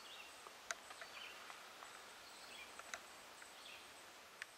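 Faint outdoor ambience: a bird chirping softly about once a second, with a few light clicks.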